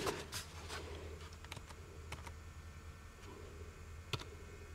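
A few scattered clicks and taps from a computer keyboard being set out and keys pressed, irregular and spaced apart, the sharpest about four seconds in. A faint steady low hum lies underneath.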